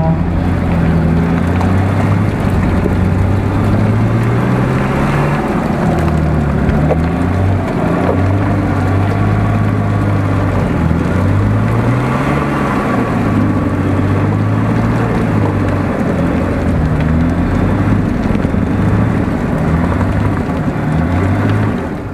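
Off-road 4x4 engine running under load through deep mud, its revs rising and falling repeatedly, with a strong rise about twelve seconds in.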